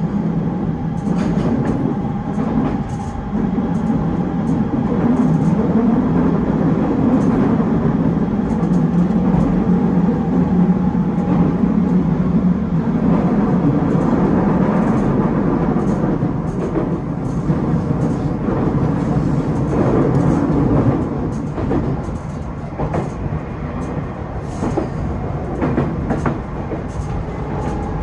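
Electric train running along the line, heard from inside the rear of the train: a steady rumble of wheels on rail with scattered clacks over rail joints. It turns a little quieter about three-quarters of the way through.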